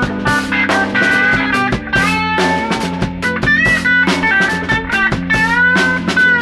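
Improvised band jam of guitar, bass and drum kit: a lead guitar plays notes that bend and slide in pitch over a steady drum beat and a held bass line.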